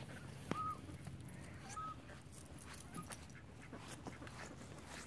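Young chickens giving a few faint, short, high calls, two of them in the first two seconds.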